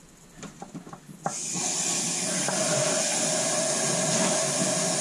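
Water from a garden hose being forced through a truck engine's cooling system during a flush: a few small clicks of the hose being handled, then about a second in the water comes on and runs as a steady, loud hissing rush.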